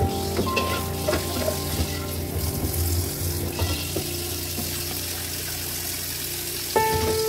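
Tap water pouring into a black frying pan in a sink, with a few clacks of utensils against the pan in the first couple of seconds, over steady background music.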